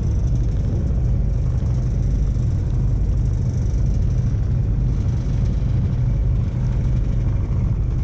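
Boat engine running steadily as the boat cruises, a constant low rumble.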